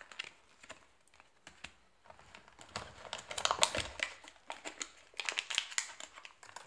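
Silver foil wrapping crinkling as hands unwrap it. Light paper rustling comes first, then two bouts of dense crackling, about three seconds in and again about five seconds in.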